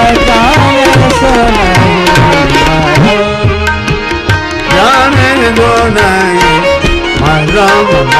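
Indian devotional music: tabla drums keep a rhythm under a melody that bends and glides in pitch.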